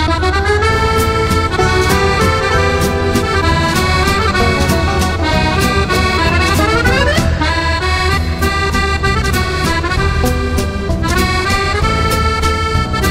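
Accordion music: a melody over a steady beat, with a quick rising run of notes about halfway through.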